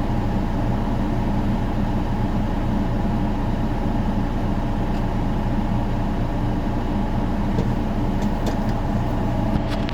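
Large farm diesel engine running steadily with a constant drone, with a few light clicks near the end.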